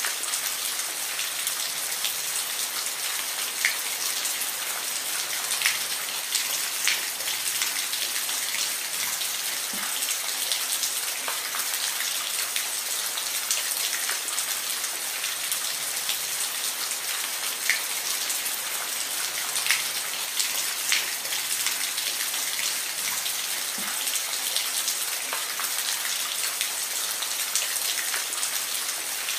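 Steady rain falling, an even hiss of rain with individual drops ticking sharply here and there on a nearby surface.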